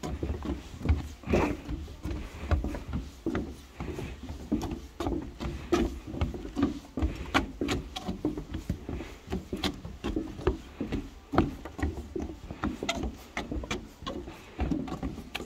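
Footsteps on a wooden boardwalk: shoes knocking on the deck boards in an uneven walking rhythm, about two steps a second.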